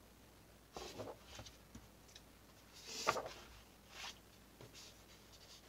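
Sheets of patterned scrapbook paper being handled, slid and laid down, rustling in a few short bursts, the loudest about three seconds in.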